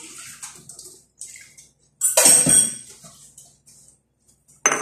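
Kitchen clatter of utensils and cookware: scattered small knocks, a louder clatter under a second long about two seconds in, and a sharp knock near the end.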